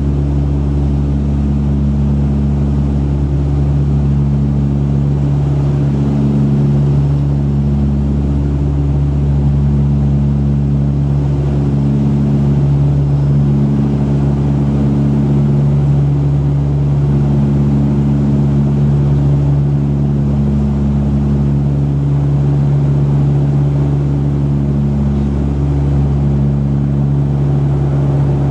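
Cabin drone of a Dash 8-100 turboprop, heard from inside the cabin: a loud, steady, low propeller hum with a tone that swells and fades every two or three seconds as the two propellers beat against each other.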